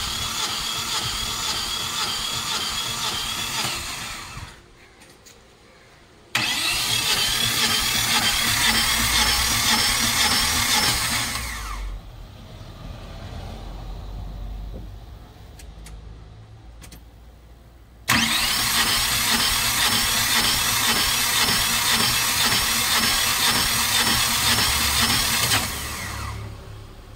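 Mahindra Jeetho minivan engine being cranked by the starter on a cold start, in three long bursts with an even, rhythmic chug. The bursts last about four, five and seven seconds, with pauses between them. The pauses hold a quieter low rumble, and it is not clear whether the engine catches.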